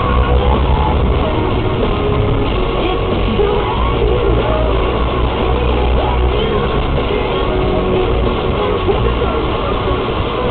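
Rock music with singing, over a steady low rumbling noise.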